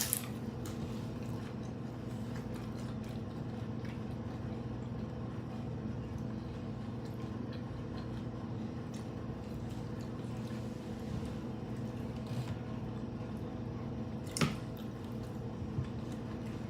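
People chewing hard-shell tacos, with wet mouth sounds and small clicks and one sharp crunch about fourteen and a half seconds in, over a steady hum.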